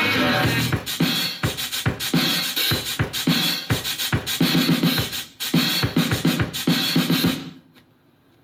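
Hip-hop music with a drum beat and turntable-style scratching, played through the speakers of a TOREC Super Jumbo J-1 boombox. The music cuts out about seven and a half seconds in, leaving near silence.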